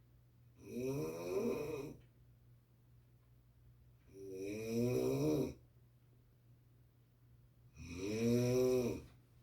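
A sleeping person snoring: three long, pitched snores on the in-breath, about three and a half seconds apart, over a steady low hum.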